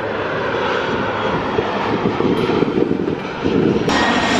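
Engine noise of a twin-engine jet airliner coming in low to land, gear down. It grows louder near the end and changes abruptly at a cut between two shots.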